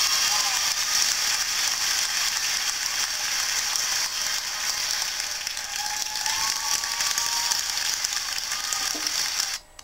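Steady high-pitched mechanical whirring and hiss, with faint wavering tones beneath, cutting off abruptly near the end.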